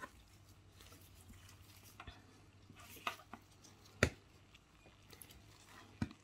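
Faint clicks and taps as an acrylic nail brush and tools are worked at a nail table, with a few sharper clicks about three, four and six seconds in, over a low steady hum.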